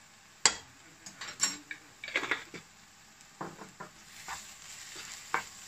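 A black spatula knocking and scraping in a non-stick frying pan as chilli powder is stirred into frying onions and spices, with a sharp knock about half a second in. A faint sizzle of the masala frying builds near the end.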